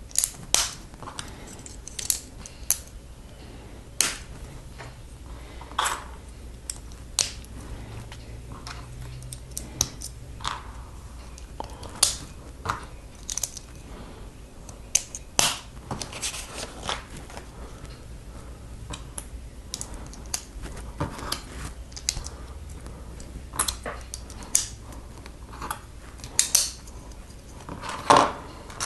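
Plastic Lego bricks being handled and pressed together: irregular sharp clicks and snaps, with short rustles between them.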